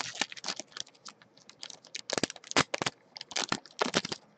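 Baseball card pack wrappers being torn open and crinkled by hand, a dense run of sharp, irregular crackles.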